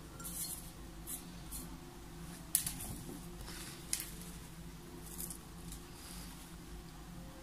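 Soft rustling and crinkling of a white wrapper being folded around dried rose petals, with two sharp clicks about two and a half and four seconds in.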